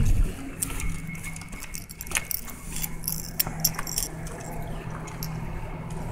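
Small metal objects jingling and clinking as they are carried, in many short clicks, over a steady low hum, with a few dull thumps at the very start.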